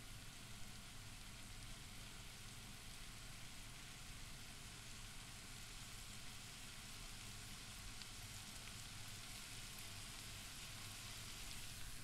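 Chopped onions sizzling in hot butter in a frying pan on a hob: a steady hiss with a few small crackles, over a low steady hum.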